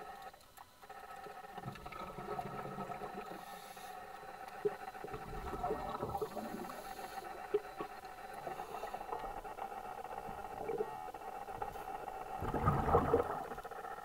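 Underwater ambience: a steady hum made of several held tones, with scattered short clicks and a few swells of low rushing noise, the largest near the end.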